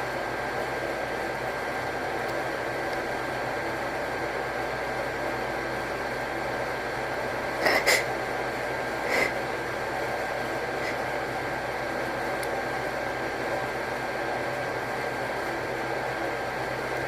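Steady background hiss, with two short, sharp breaths about eight and nine seconds in: a person's catching inhales during a sneeze buildup that does not turn into a sneeze.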